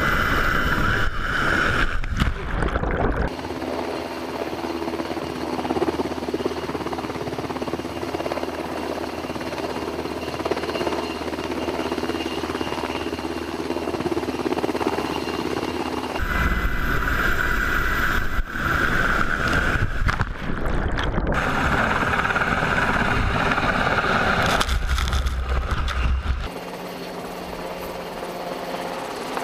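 Sikorsky MH-60S Seahawk helicopter hovering low: steady rotor and twin-turbine engine noise with a high steady whine in places. The sound changes abruptly several times and is quieter near the end as the helicopter is farther off.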